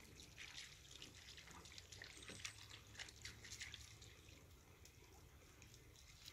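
Faint lapping of small ripples on the water, heard as soft, irregular drips and ticks over near silence.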